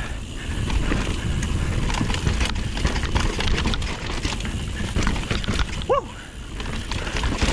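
Mountain bike running fast down a rough dirt trail, heard from a helmet camera: a steady rumble of tyres and wind on the microphone, with the bike rattling and knocking over bumps and roots. A brief rising-and-falling squeal or cry about six seconds in, around where the bike skids out on a tree root.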